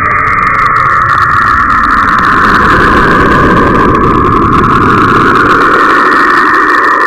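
A 'planet sound from space': a loud, steady rushing drone with a hissing band high up and a low rumble beneath that swells through the middle, with no beat or melody.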